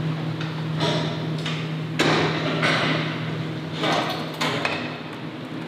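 Steel hooks and gambrels clanking and rattling on an abattoir's overhead carcass line. There are several separate clatters over the few seconds, above a steady low hum of plant machinery.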